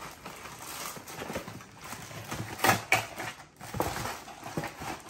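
Cardboard box being handled and opened on a countertop: flaps rustling and scraping, with several knocks as the box is pulled and set down, the loudest about two and a half seconds in.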